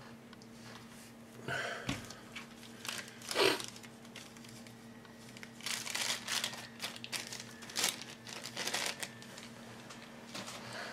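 Thin clear plastic bag crinkling and rustling in irregular bursts as a plastic model-kit sprue is handled and slid back into it. The loudest rustle comes about three and a half seconds in, and a longer run of crinkling follows from about six to nine seconds.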